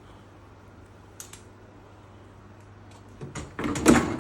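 Lower dish rack of an Electrolux ESF6010BW dishwasher being slid back in on its rails: a faint click about a second in, then a clattering, rattling slide with a loud knock near the end.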